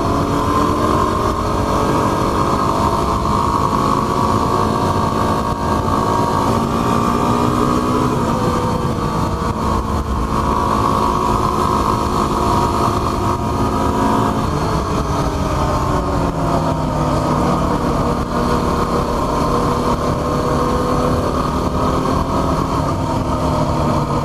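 Yamaha WR250R's 250 cc single-cylinder four-stroke engine running while riding, its pitch climbing over the first eight seconds, falling sharply about eight and again about fourteen seconds in, then dipping and climbing again.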